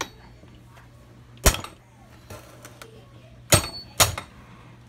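Socket and ratchet clanking against a Kawasaki KE100 engine's crankcase while working the shift drum detent plug loose: three sharp metallic knocks, the first the loudest, the last two close together.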